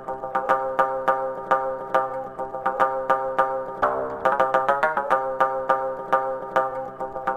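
Background music: a repeating pattern of short, evenly spaced notes over a steady beat.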